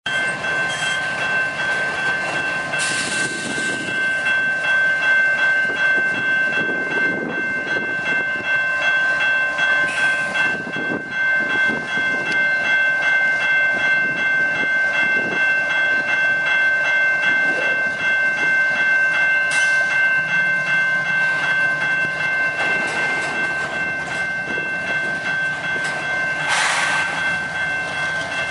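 Canadian Pacific coal train passing close by, its hopper cars rolling over the rails with a loud, continuous rumble and clatter. A steady high-pitched squeal of several tones runs throughout, with a few brief louder clanks.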